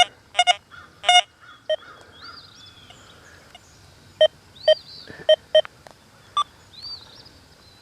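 Metal detector giving short, separate target beeps as the coil is swept over a buried coin in the Deep HC program, about nine beeps at irregular spacing.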